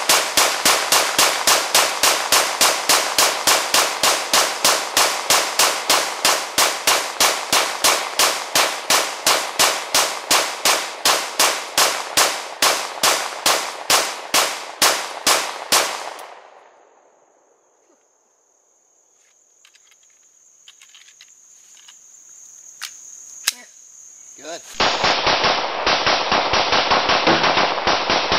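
Glock 17 9mm pistol fired as fast as the trigger can be pulled from a 50-round drum magazine: an even string of shots, about three a second, that stops after some sixteen seconds. A steady high trill follows during the pause, then another rapid string of pistol shots begins near the end.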